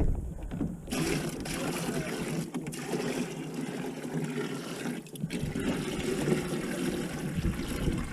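Steady rush of trickling water that starts abruptly about a second in, with two brief drop-outs.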